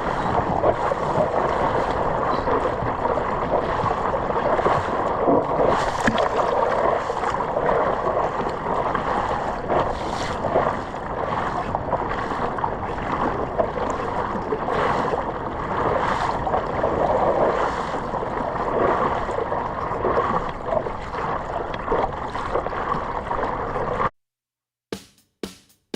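Steady rush of ocean surf and moving water, with scattered splashes, that cuts off abruptly near the end and leaves a couple of seconds of near silence broken by a few clicks.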